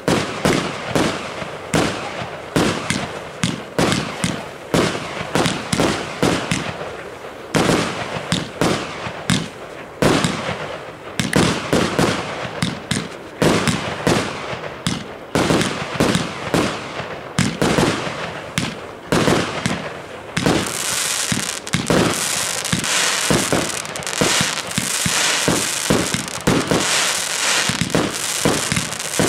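Aerial fireworks firing in quick succession: a fast string of sharp bangs as shots launch and burst. About two-thirds of the way through, a dense hissing crackle joins the bangs.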